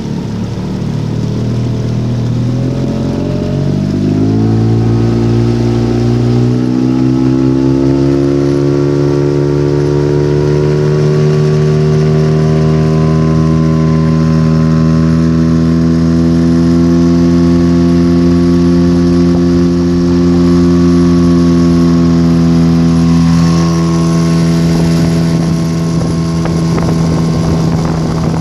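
Tohatsu M5BS two-stroke outboard motor running: its note climbs over the first several seconds as the revs come up, holds steady, then eases slightly lower near the end. A faint thin high whistle sits above the engine note, a strange whistle whose cause the owner does not know.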